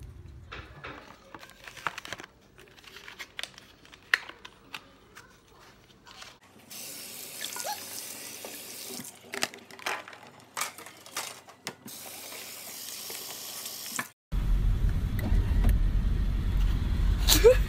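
A kitchen tap running into a sink in two spells, with clicks and knocks of dishes around them; then, after a cut, a steady low rumble of a car cabin, the loudest part.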